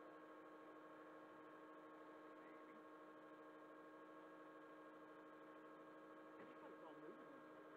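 Near silence with a faint, steady electrical hum made of several constant tones.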